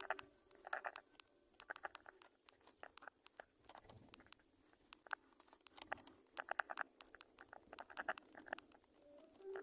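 Small birds at a nest making quick clusters of short, faint clicking chips, a burst every second or so.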